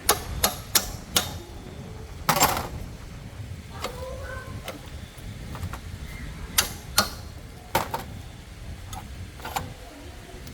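Irregular sharp clicks and knocks of hard objects, about a dozen, with a longer scraping knock about two seconds in.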